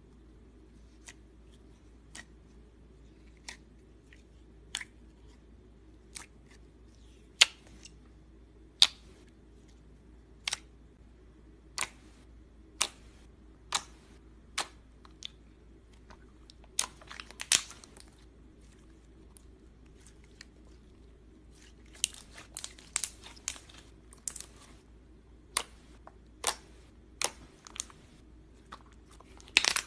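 Clear jelly slime being pressed and poked by fingers, giving sharp wet pops and clicks as air pockets burst. Single pops come about every second and a half at first, then in quick clusters further on.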